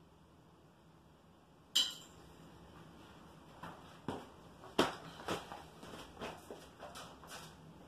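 A single sharp clink with a brief ring about two seconds in, then a scatter of uneven knocks and clatters as a tiler gets up and steps out of the shower among loose tiles and tools.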